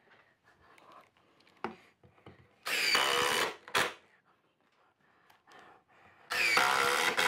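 Makita 18V cordless impact driver driving two deck screws into wood boards, each screw going in within about a second, with the pitch falling as each screw seats.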